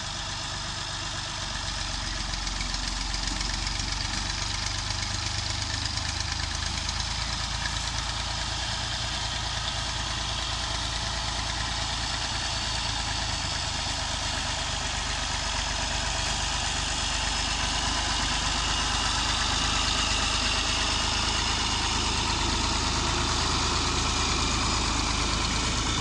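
Massey Ferguson MF240 tractor's three-cylinder diesel engine running steadily under load as it pulls an uprooted fruit tree out on a chain. It grows gradually louder as the tractor comes closer.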